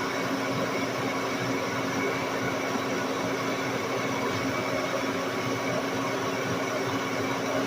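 Lodge & Shipley 1610 Power Turn engine lathe running steadily under a heavy boring cut in a large ring, a constant machine hum with a held tone over it.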